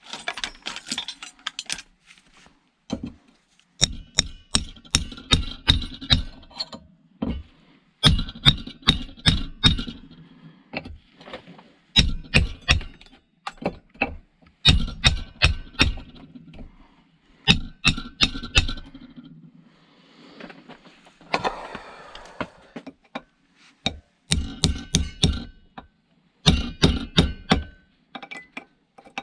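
Repeated bursts of rapid hammer blows on metal, several strikes a second with a ringing clink, knocking a stuck part loose from scrap being torn down for its copper. A short scraping rattle comes between bursts about two thirds of the way in.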